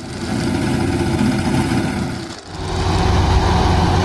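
Engine of a rice-harvesting machine running steadily, in two short stretches with a break about two and a half seconds in.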